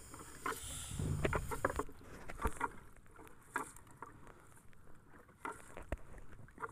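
Wet nylon gill net being hauled by hand over the wooden side of a small outrigger boat: scattered irregular soft knocks and drips against the hull and water, with a louder rustling stretch about a second in.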